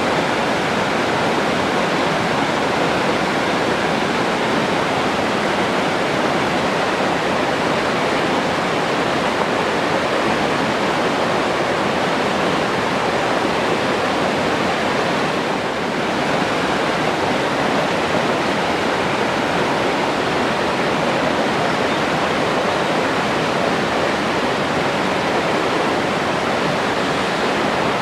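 Forest stream flowing: a steady, even rush of water.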